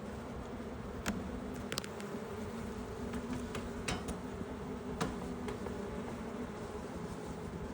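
Honeybees buzzing in a steady hum over an opened hive, with a few short sharp clicks.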